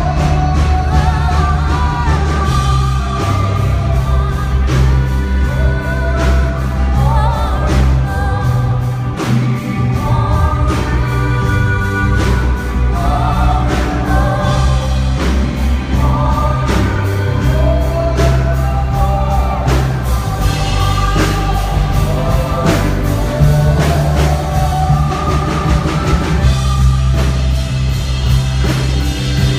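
Live band playing a song at a sound check: lead vocal with a backing choir of singers over bass and a steady drum beat.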